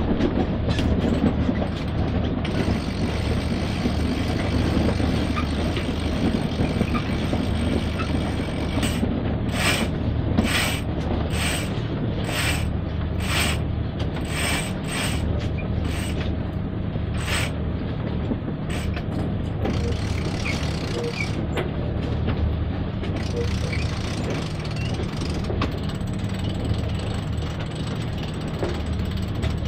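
Sailboat winch being cranked with a handle, its ratchet clicking in a run of strokes roughly once a second partway through, over a steady low hum.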